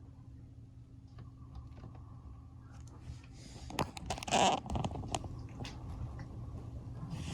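A brown tabby cat sneezing once about four seconds in: a short, sharp burst with a fainter rush just before it. The sneeze comes from a cold that has left the cat with a runny, blocked nose.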